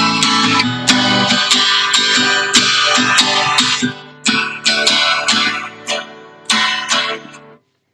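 Guitar strummed in a steady rhythm, thinning about halfway to a few single strums left to ring, which die away near the end.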